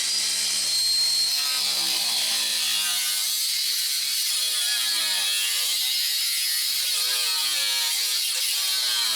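Power tool cutting through the rusty steel floor pan of a car, running loud and steady with a high hiss, its pitch drifting up and down as it bites into the metal.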